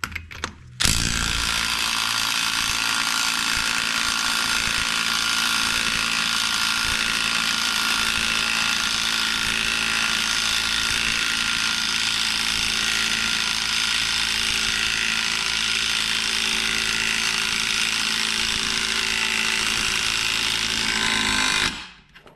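Cordless DeWalt impact wrench hammering continuously on the long bolt of a bolt-and-washer press, drawing a new rear hub bearing into its knuckle. It starts about a second in and stops shortly before the end, when the hub has cinched down.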